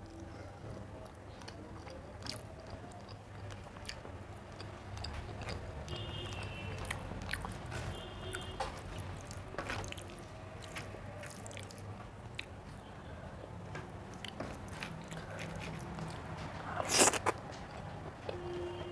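Close-up eating sounds: chewing and biting through a meal of rice, daal and curries, with scattered small wet clicks of mouth and food. A single louder sharp crack or knock comes near the end.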